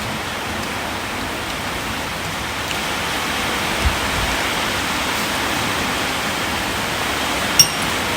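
Steady rushing noise, with a short low thump about four seconds in and a sharp click near the end.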